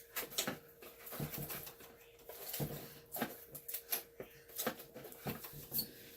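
Homemade slime being squished and kneaded by hand, with irregular wet squelches and little clicks and pops, as glue is worked into overactivated slime to soften it.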